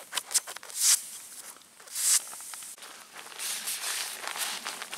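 Synmat inflatable sleeping mat being handled, its nylon shell rustling in two short swishes, then a tissue rubbing back and forth over the fabric in the second half to dry the spot around a puncture before patching.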